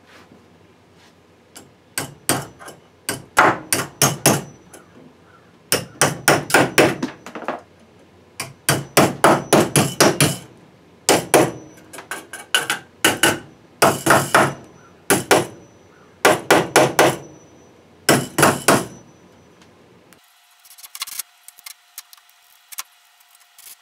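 Hammer blows fastening a metal electrical box to a wooden rafter, in quick bursts of several strikes with short pauses between them. Near the end a DeWalt cordless drill runs steadily for a few seconds at the box.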